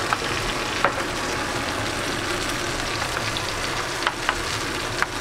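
Steaks sizzling steadily in a hot frying pan, with a few short sharp ticks on top.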